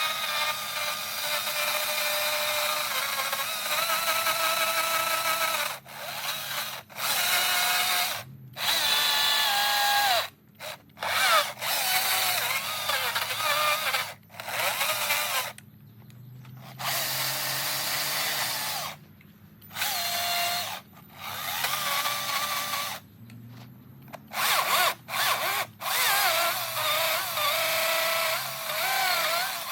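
Chainsaw cutting into eastern red cedar while carving, throttled up and down, its pitch rising and falling with the cuts. It dips back to a low idle a dozen or so times between cuts.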